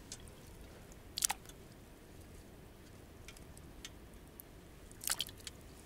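Potatoes being handled and dropped into a metal camp pot of water, giving short sharp knocks and clicks: a cluster about a second in, a few faint ticks after it, and another cluster near the end.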